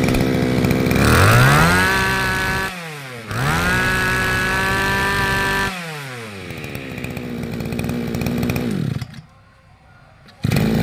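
Ryobi 26cc two-stroke brush cutter engine idling, revved up twice and let drop back to idle, running crisply. About nine seconds in it cuts out, and it starts again just before the end.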